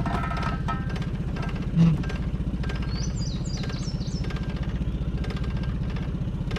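Jon boat's outboard motor idling steadily with an even, rapid pulse. A short thump comes about two seconds in.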